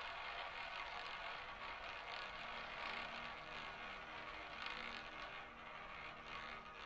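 A roulette ball rolling around the track of a spinning roulette wheel, a steady whirring rattle.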